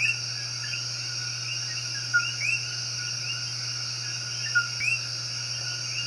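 Outdoor nature ambience: a steady high insect drone with short chirping bird calls repeated about once a second, over a low steady hum.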